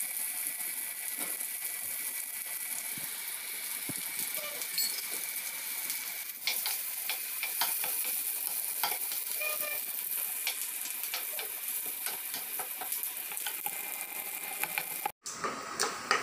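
Sliced shallots, green chillies and curry leaves sizzling in hot oil in a frying pan as they are stirred with a plastic spatula: the tempering for a kichadi. A steady hiss with scattered light clicks.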